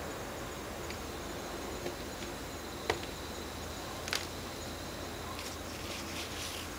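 Shoes knocking on a playground slide, a few sharp knocks about three and four seconds in as a man climbs it, then a short scraping rustle as he starts to slide down, over steady outdoor background noise with a thin high whine.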